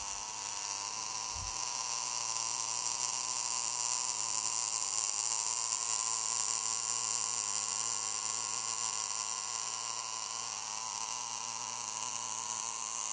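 MIG welding arc of a BOA-408i automated bore welder, welding inside a bore: a steady hissing buzz over a low hum, unbroken throughout.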